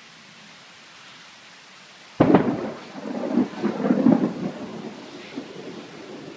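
Thunderclap from a close lightning strike: a sudden sharp crack about two seconds in, then a crackling rumble that swells once more and fades over the next few seconds, over the steady hiss of rain.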